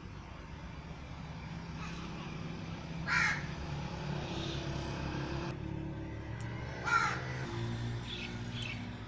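Crow cawing: two loud, short caws about four seconds apart, then fainter calls near the end, over a steady low engine hum.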